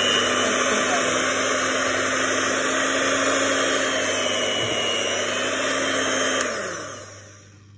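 Electric hand mixer running steadily with its beaters whisking chocolate cake batter, then switched off near the end, its whine falling as the motor spins down.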